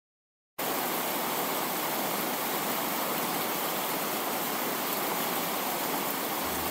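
Steady, even static-like noise hiss that starts abruptly about half a second in and cuts off sharply near the end.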